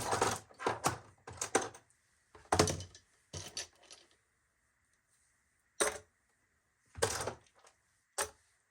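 Metal hand tools clinking and clattering as they are handled and set into a plastic toolbox drawer. There are about eight short bursts, with a quiet spell of a couple of seconds past the middle.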